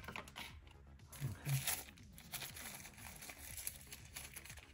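Thin plastic wrapping crinkling and rustling as a remote case is pulled out of it by hand, in a few short bursts, the loudest about a second and a half in.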